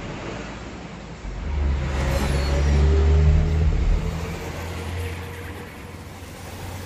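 A motor vehicle's engine rumble swells from about a second in and fades after about four seconds, as a vehicle passing by would.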